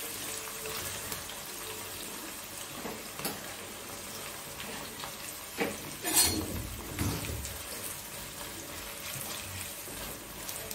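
Sliced onions sizzling steadily as they deep-fry in very hot mustard oil in a kadai. A few sharp knocks come around six seconds in.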